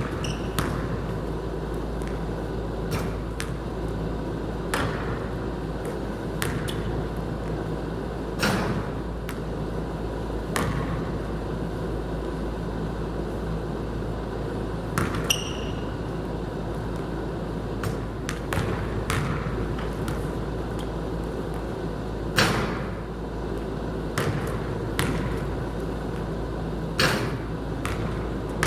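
A basketball bouncing now and then: about a dozen sharp knocks spaced irregularly over a steady low hum, with a brief high ringing ping about halfway through.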